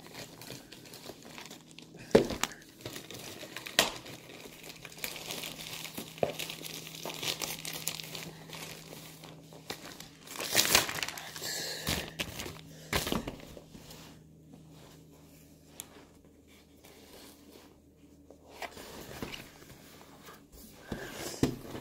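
Packaging crinkling, rustling and tearing as a parcel is opened by hand, with a few sharp knocks and clicks. The rustling is loudest about halfway through and dies down near the end.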